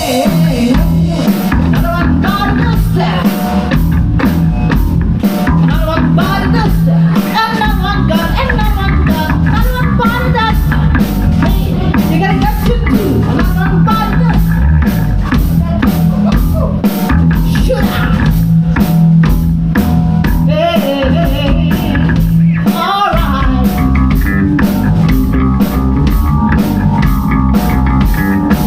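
Live rock band playing loudly and without a break: drum kit, electric guitar and bass, with a melody line wavering over them.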